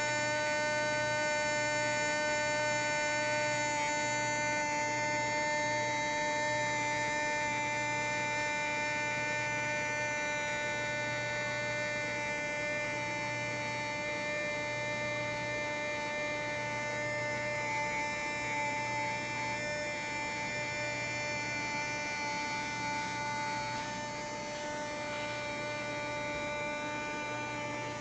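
Luxman RX-103 receiver's automatic front door humming steadily, a buzzing drone with several steady tones. It drops slightly in level near the end.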